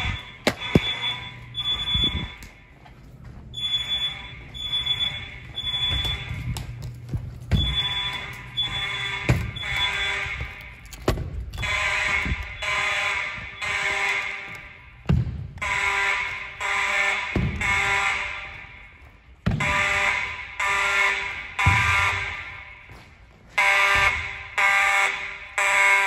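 Fire alarm horns sounding in the temporal-three evacuation pattern: three short buzzy blasts, a pause, then the next three, repeating about every four seconds. A few dull thumps fall between the blasts.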